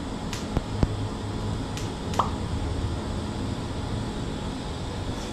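Electric welding arc running steadily on sheet steel: a continuous hiss over a low hum, with a few faint clicks.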